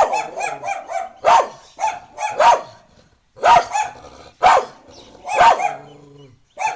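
A dog barking repeatedly, roughly once a second, with a quick run of shorter, softer barks just after the start.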